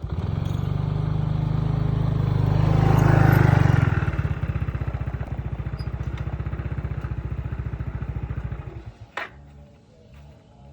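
An engine running with a steady pulsing beat, revving up about three seconds in and settling back, then cutting off near the end, followed by a single click.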